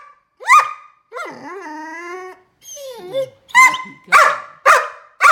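A 15-week-old Great Dane puppy "talking": a short bark, a long drawn-out wavering call that bends up and down in pitch, then a quick run of about four sharp barks in the second half.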